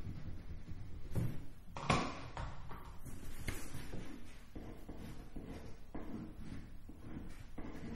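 Marker pen scratching on a small slip of paper on a tabletop, in short faint strokes, with two louder knocks or paper rustles about one and two seconds in, over a low steady hum.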